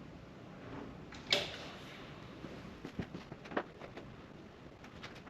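Classic Mini body shell being shimmied down over its engine and subframe: one loud scrape about a second in, then a scatter of light metal knocks and clicks.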